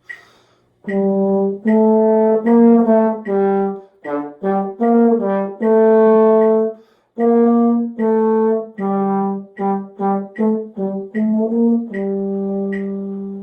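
A wind instrument playing a slow, simple beginner's band melody from the first note to a long final note, starting soft, with a metronome ticking steadily underneath.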